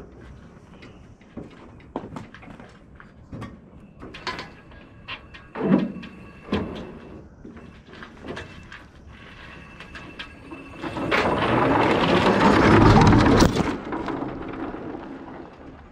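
Scattered knocks and creaks, then in the last third a loud rumbling clatter lasting about three seconds as a Pennsylvania Panzer lawn tractor rolls down aluminium loading ramps, its engine not running.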